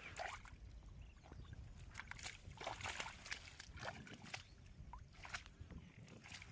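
Faint, irregular rustling and scraping: a sack being handled as caught rohu fish are put into it on grass.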